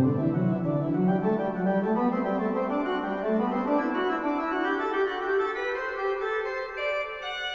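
Sampled pipe organ of St Mary-le-Bow, London, played through Hauptwerk virtual-organ software: fast running notes in the middle and upper voices over a low bass line that stops about a second and a half in. The music thins out and grows quieter near the end.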